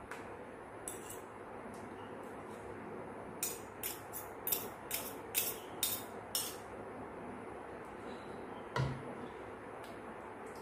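Metal spoon and fork clinking against a takeaway food container while eating: a quick run of about eight sharp clicks over three seconds, then one louder knock near the end, over a steady background hiss.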